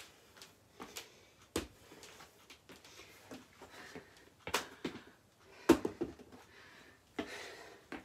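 Scattered knocks and thuds of a plastic aerobics step and a kettlebell being handled and set down on a wooden floor, mixed with footsteps. About half a dozen separate knocks, the loudest a little past the middle.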